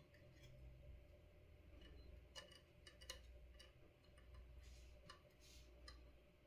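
Near silence with a low steady hum, broken by a few faint small clicks about two to three seconds in and a couple of brief soft hisses near the end.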